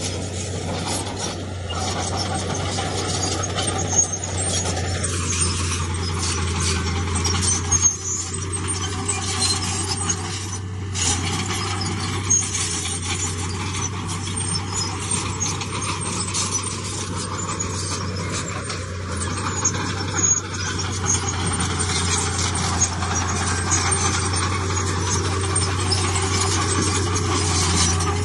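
Heavy diesel earthmoving machinery running steadily, a constant low engine drone with metallic squealing and clanking on top.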